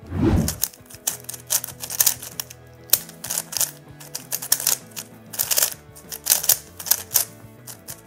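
Moyu RS3M Super 2022 3x3 speed cube turned fast in a timed solve: a quick, irregular clatter of plastic clicks and clacks, with a low thump as it starts.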